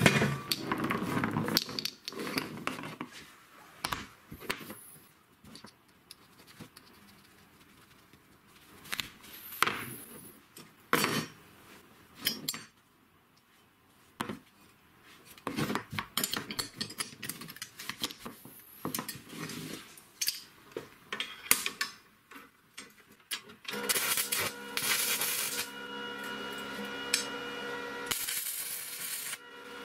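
Steel parts clinking and knocking as they are handled and fitted together by hand. Near the end an electric welding arc starts and runs steadily, crackling, for the last several seconds.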